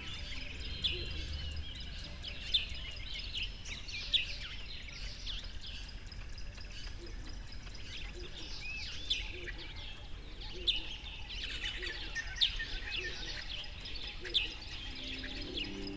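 Several birds chirping and calling: many short, high chirps and quick trills overlapping, over a low steady background hum.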